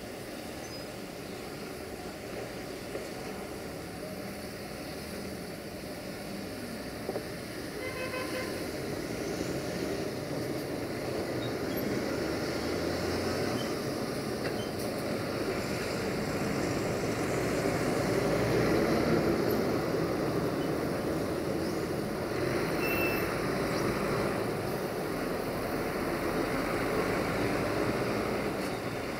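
Electroputere LDE2100 (CFR Class 60) diesel-electric locomotive hauling a freight train as it approaches: a steady rumble of engine and running gear that grows louder over the first two-thirds and then holds.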